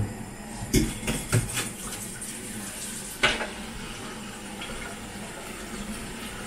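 Shrimp-head broth simmering in a nonstick pan on a gas burner, a steady bubbling hiss. A few sharp knocks come in the first half.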